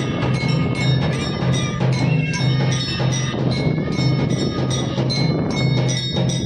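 Bells struck rapidly and evenly, about four strikes a second, their tones ringing on over a steady low beat.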